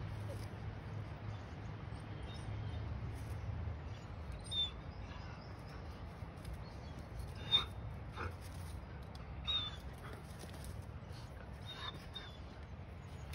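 Dog whimpering: a few short, high whines spaced a couple of seconds apart, over a steady low background rumble.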